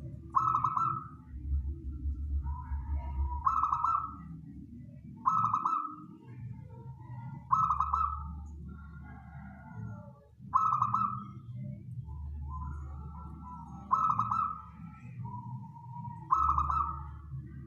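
Zebra dove (perkutut) cooing: a short, loud cooing phrase repeated every two to three seconds, with softer notes in between, over a low steady hum. It is a local wild-type perkutut's song of the kind used as a lure call to draw wild doves.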